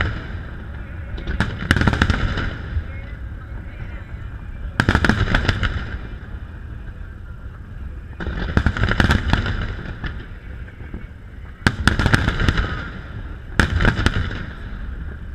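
Aerial firework shells bursting in volleys: five clusters of sharp bangs and crackles a few seconds apart, with a low rumble carrying on between them.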